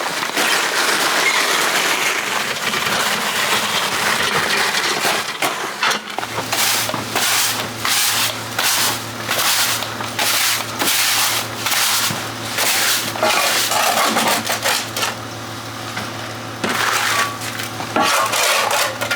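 Gritty scraping and crunching of soil and stones. From about six seconds in, short crunches come roughly twice a second, over a steady low hum.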